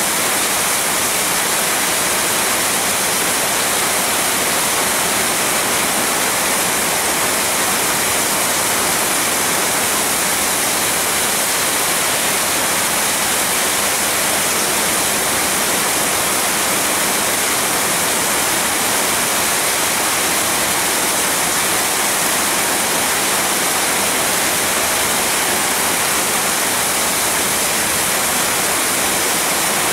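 Heavy rain pouring steadily, an even, dense hiss with no thunderclaps.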